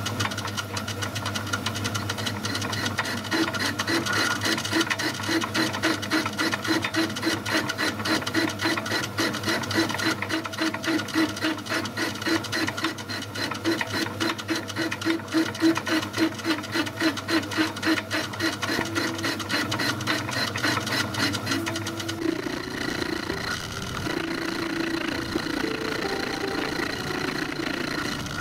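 Metal lathe running, turning a 303 stainless steel bar held off-centre in the chuck, a steady hum with a rhythmic pulsing of about four beats a second. About 22 seconds in the sound changes abruptly and the low hum drops out.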